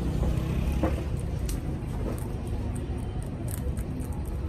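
Rabbits chewing leafy greens: scattered small, crisp crunching clicks over a steady low background rumble.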